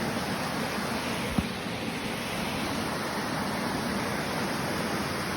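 Steady rush of flowing creek water, with a single low thump about a second and a half in.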